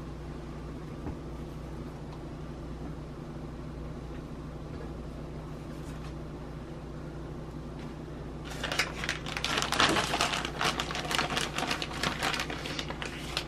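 Steady low room hum. About eight and a half seconds in, a plastic bag of shredded Swiss cheese starts crinkling and crackling rapidly as it is handled, much louder than the hum, for about five seconds.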